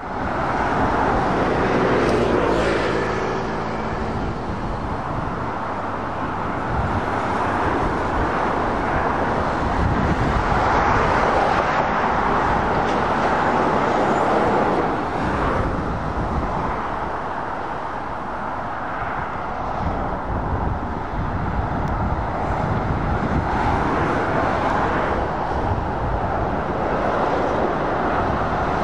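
Motorway traffic passing steadily: lorries and cars going by with a continuous rush of tyre and engine noise. A passing truck's engine note stands out about two seconds in.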